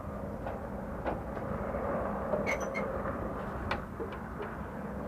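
Steady rushing noise with a few short sharp clicks and knocks scattered through it, a small cluster of them about two and a half seconds in.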